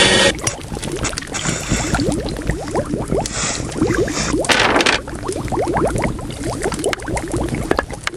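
Liquid bubbling and gurgling in quick, many short rising bubble sounds, with a few brief bursts of hiss.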